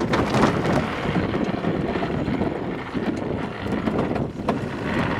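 Wind buffeting the microphone and water rushing past a Volvo 65 racing yacht under sail, a steady noise broken by a few sharp knocks.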